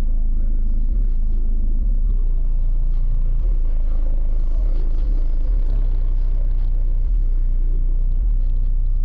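Deep bass from a car's twelve Darkai 12-inch subwoofers playing music, heard from outside beside the open door: a loud, steady low rumble with little above it.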